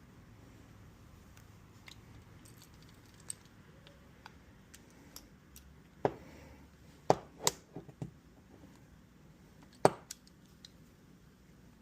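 Scattered light metallic clicks and clinks of hand tools and small metal fittings being handled, with a few sharper knocks about six, seven and ten seconds in.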